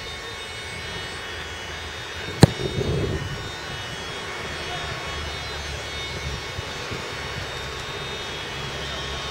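A football struck once with a sharp thud about two and a half seconds in, over a steady low rumble of background noise.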